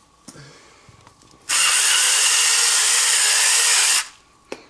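Salt grinder grinding sea salt: one steady whirring grind that starts about a second and a half in and stops after about two and a half seconds.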